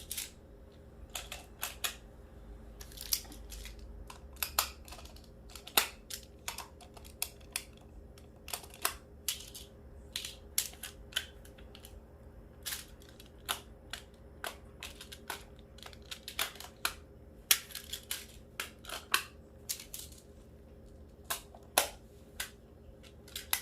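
Plastic magnetic building tiles clicking and clacking as they are picked up and snapped together, a string of irregular sharp clicks about one or two a second.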